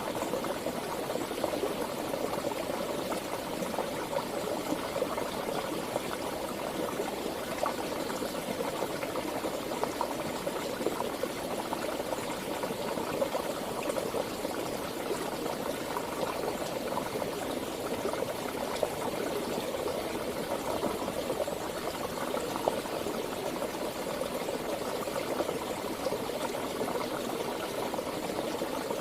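Running water of a stream, a steady rushing with many small splashes and gurgles.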